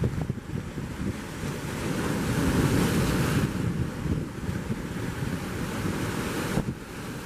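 Wind buffeting the microphone over the wash of choppy surf, with a louder rush of breaking water about two to three seconds in.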